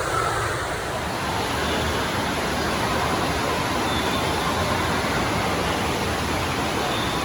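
Steady rush of pouring water with the echoing din of an indoor water park.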